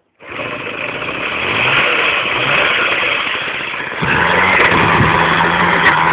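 Small two-stroke D6 moped engine catching suddenly and running loud and rough. About four seconds in it picks up and settles into a steadier, higher-pitched running note.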